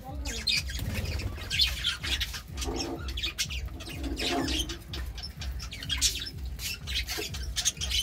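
Budgerigars chattering: a continuous run of short, scratchy chirps and warbles.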